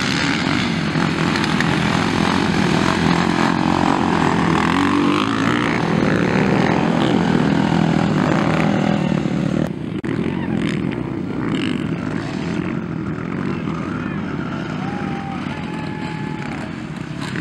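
Motocross dirt bike engines revving hard as the bikes race past. About ten seconds in, the sound breaks off abruptly and comes back slightly quieter.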